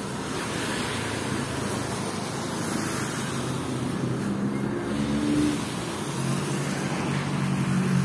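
Road traffic: a steady rush of passing vehicles, with a vehicle's engine hum coming in about halfway through and growing louder toward the end.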